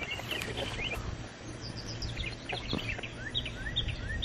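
Birds chirping, with a run of short rising notes in the last second or so, over a low steady background rumble.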